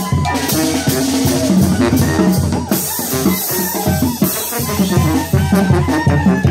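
A tamborazo band playing live: the tambora bass drum and cymbals keep a steady, strong dance beat under a brass melody, with a swell of cymbal wash about three seconds in.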